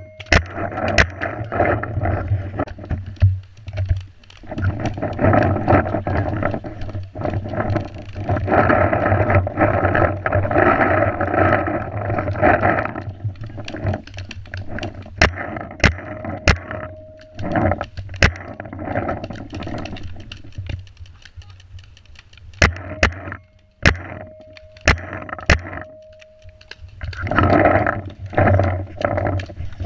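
Paintball markers firing: sharp pops, some single and some in quick strings, over a rushing, rustling noise of movement and wind on the camera, which is loudest for several seconds near the middle.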